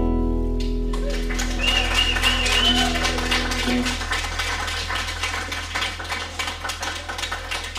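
Western swing band playing an instrumental passage: upright bass holding low notes under archtop guitars, a sustained chord at first giving way to steady rhythmic strumming.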